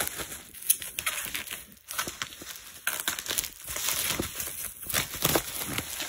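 Bubble wrap crinkling and crackling in irregular spurts as hands pull a boxed radio out of it.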